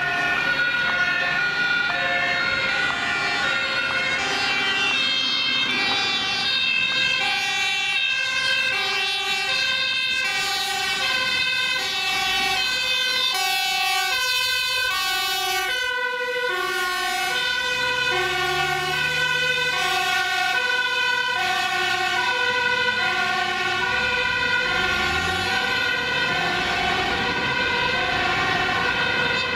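Dutch fire-brigade two-tone sirens alternating high and low notes, two of them overlapping out of step, as fire vehicles respond with priority. In the second half the fire engine's diesel engine can be heard rising in pitch as it accelerates.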